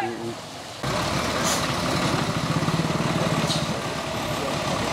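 Diesel engine of an Ashok Leyland bus running, a steady low rumble that starts suddenly a little under a second in, with two short hisses of air about two seconds apart.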